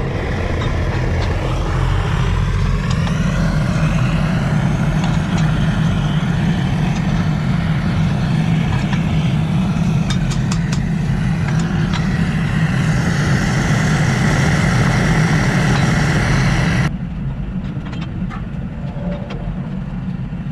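Gas burner roaring steadily under a tire vulcanizing press, fed from an LPG cylinder, heating the press to cure a sidewall repair. A few light clicks come near the middle, and about 17 seconds in the roar drops sharply to a quieter steady noise.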